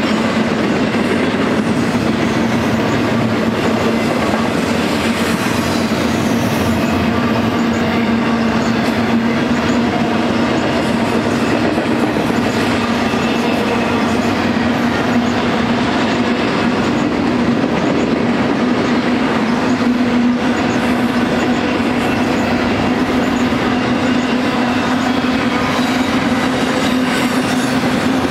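Double-stack intermodal freight train's container well cars rolling past, a continuous rumble and clatter of steel wheels on rail with a steady hum under it.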